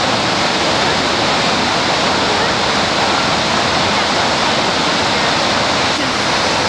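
Steady, loud rushing noise of falling water.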